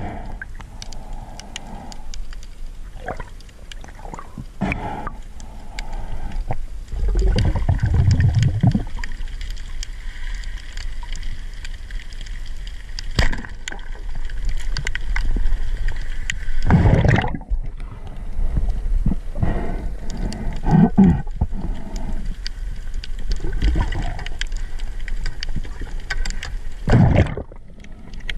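Underwater sound picked up by a camera in the sea: a constant crackle of small clicks over a wash of moving water, broken by several heavier thuds and surges.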